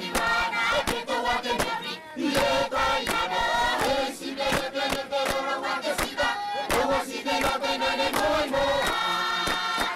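Group of voices singing a Kiribati dance song in chant style, with sharp percussive beats marking the rhythm throughout.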